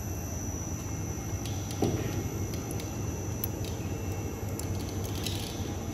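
SuperbMelt hollow pipe welding machine running, a steady low hum from its drive as the forming rollers draw gold strip through. A single knock comes about two seconds in, with a few faint light ticks after it.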